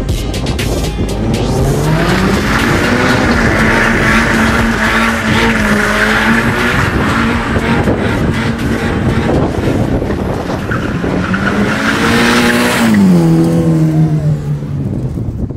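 Subaru BRZ's flat-four held high in the revs while it spins donuts, with tyres squealing. The revs dip briefly around ten seconds in and climb again, then drop away and the squeal stops about thirteen seconds in.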